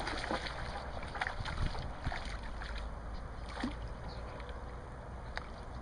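Low wind rumble on the microphone, with a few faint splashes and ticks in the first couple of seconds as a small hooked bass thrashes at the water's surface.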